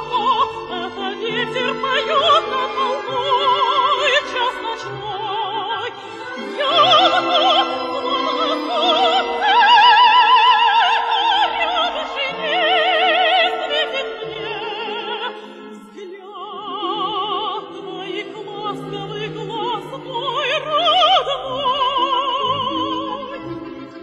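Operetta music: a soprano singing long, wavering notes with wide vibrato over an orchestra, the loudest held note about ten seconds in.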